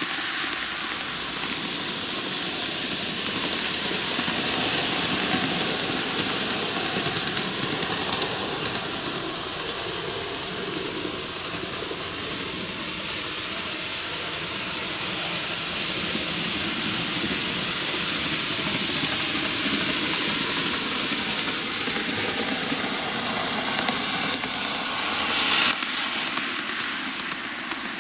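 N-gauge model electric trains, Keihan 1000 series and 7200 series models, running on TOMIX canted track: a steady running noise of small wheels on the rails, louder for a moment near the end as a train passes close.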